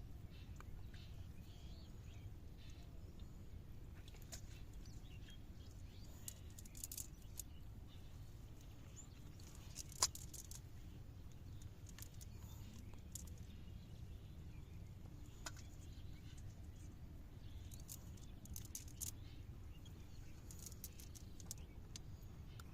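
Faint outdoor ambience: a steady low rumble with scattered small high clicks and ticks, and one sharper click about ten seconds in.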